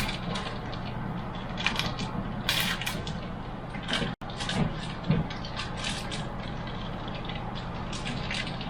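Irregular clicks and light clattering of small hard parts being handled, over a steady low hum.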